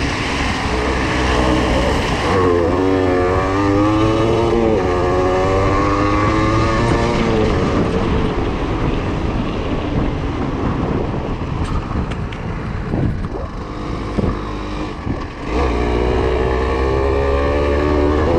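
Yamaha TDR 125's two-stroke single-cylinder engine being ridden, its revs rising and falling as the throttle is worked. Midway it drops back under a noisier rush with a few knocks, then pulls steadily again near the end.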